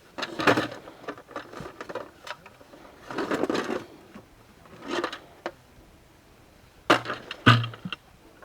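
A few irregular scraping and knocking noises, each short, with quiet between them.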